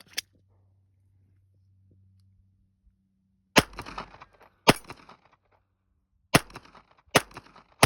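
Beretta Tomcat .32 ACP pocket pistol firing four shots, spaced roughly a second apart, with a short ringing tail after each. A single small click comes just after the start, before the shooting begins.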